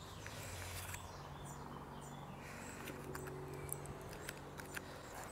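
Faint garden ambience: small birds chirping, a few light clicks, and a low steady hum through the middle seconds.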